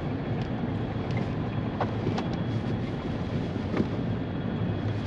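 Steady low rumble of wind on the microphone aboard a fishing boat, with a few faint clicks.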